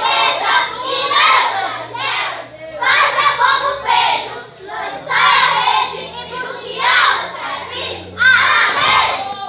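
A group of children singing together in short phrases, loud and continuous.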